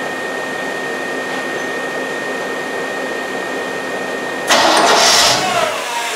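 Newly rebuilt 350 small-block Chevrolet V8 running, a steady whooshing hum with a thin high whine. About four and a half seconds in it surges sharply louder for about a second, then drops back.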